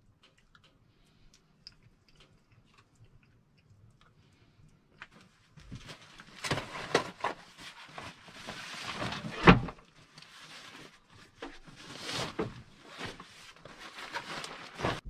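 Faint clicks of a spoon in a plastic bowl. Then, from about six seconds in, the rustling, scraping and knocking of a backpack being packed and handled, with one loud knock past the middle.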